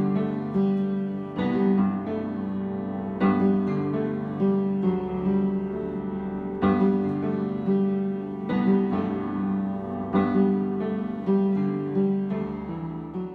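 Piano music: chords struck about every two seconds, each left to ring and fade.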